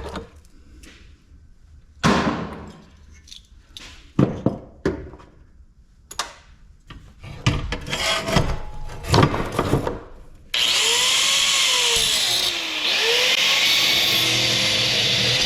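Scattered clanks and knocks of metal parts being handled while an ice maker is taken apart, then, about ten seconds in, a power tool starts and runs loudly, its speed rising and falling several times.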